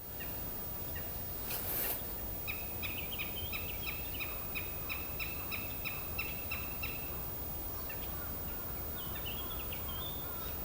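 Female northern goshawk calling a rapid series of short, sharp notes, about four a second for some four seconds, calling to the male. A steady low background rumble lies underneath.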